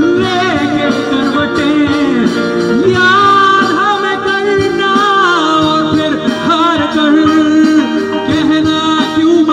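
Male singer's amplified wordless alaap, a melodic line that slides and wavers through ornamented held notes, over a live band's electric guitar and keyboard.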